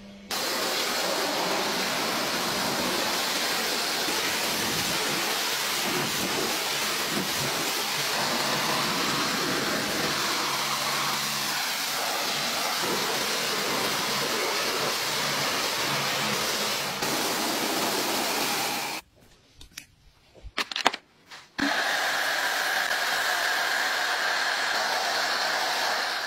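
Pressure-washer jet spraying water against a mud-caked car body: a loud, steady hiss. About nineteen seconds in it cuts off for a quiet gap of a couple of seconds with a few clicks, then a similar steady hiss with a higher tone in it resumes.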